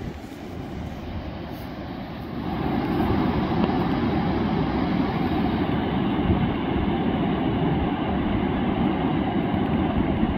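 Ocean surf breaking on a sandy beach: a steady rush of waves that grows louder about two and a half seconds in and then holds.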